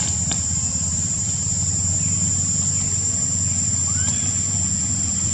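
Outdoor ambience: a steady high-pitched insect drone over a steady low rumble, with a few faint short chirps about two and four seconds in.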